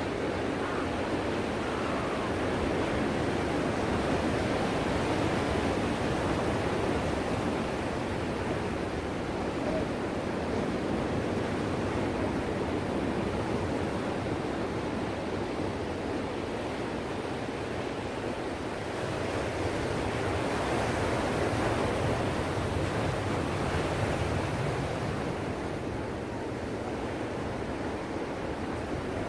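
Ocean surf: waves breaking and foam washing in a steady rush that swells and eases slowly.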